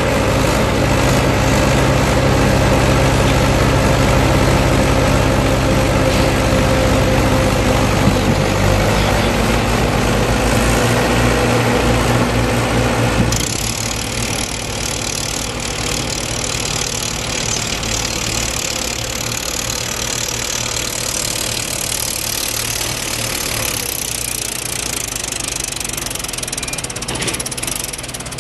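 Diesel engines of two tractors running under load as one tows the other, with its loaded sand trolley, out of deep sand. About 13 seconds in the sound drops suddenly to a quieter, more distant engine sound.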